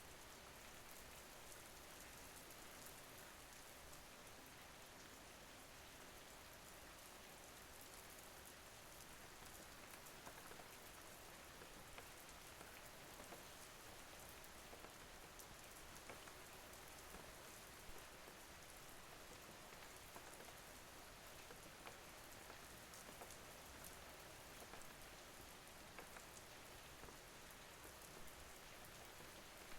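Faint, steady rain falling, with scattered light ticks of individual drops.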